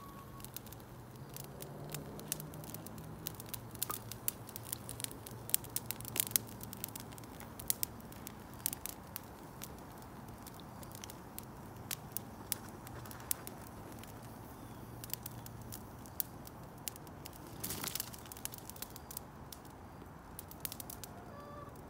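Small campfire of split kindling and twigs crackling, with many irregular sharp snaps throughout, in its early burning stage. About 18 seconds in there is a brief louder rush of noise.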